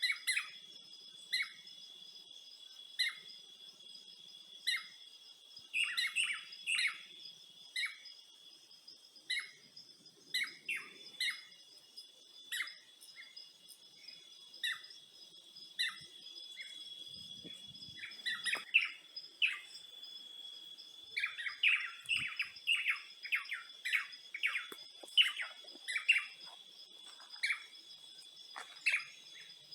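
Birds chirping in short separate calls about every second or so, growing busier from about 18 seconds in, over a steady high-pitched insect drone.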